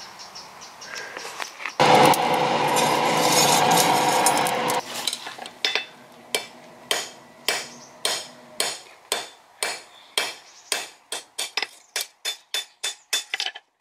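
Hand hammer striking a hot leaf-spring steel cleaver blank on an anvil while forging its tang. The sharp, ringing blows come about two a second at first and quicken to three or four a second near the end. Before the blows there is a loud, steady rushing noise lasting about three seconds.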